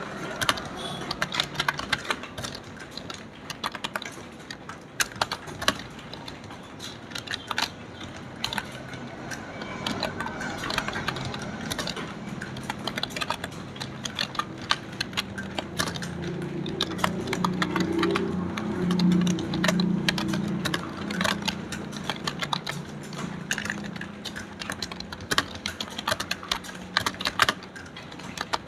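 Fast typing on a computer keyboard: a dense, irregular run of key clicks with no pauses, over a low hum that swells in the middle.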